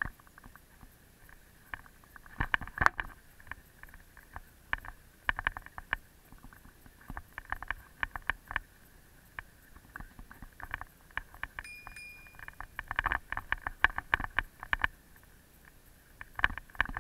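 A bicycle rattling and clicking as it is ridden over a rough paved path, in irregular clusters of sharp knocks as the wheels hit bumps. A brief high tone sounds once a little past the middle.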